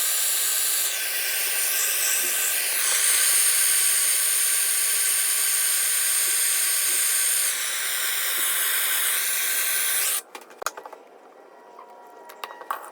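A hand-held gas soldering torch hissing steadily while heating a copper pipe joint, then shut off abruptly about ten seconds in. A few small clicks and taps follow.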